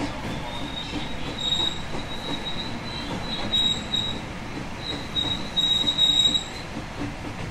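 JR West 221 series electric train running, its wheels squealing against the rails in a high squeal that comes and goes over the steady rumble of the run. The squeal is loudest shortly before the end and then stops.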